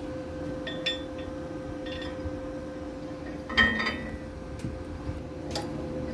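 Steel tools clinking on the bolts and flanges of a pipe joint as a flexible connector is bolted up, a few sharp ringing clinks with the loudest about three and a half seconds in, over a steady hum.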